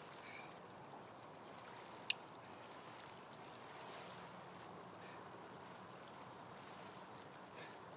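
Faint, steady wash of calm water lapping against shoreline rocks, with a single sharp click about two seconds in.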